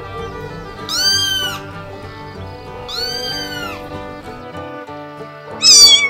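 A cat meowing three times, each a high meow that rises and falls, about two seconds apart, over background music. Just before the end comes a short, much louder high call that falls in pitch.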